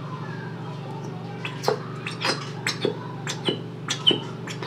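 Plastic squeeze bottle held upside down and squeezed, giving a run of irregular clicks and short squeaky sputters as liquid and air squirt out of the nozzle.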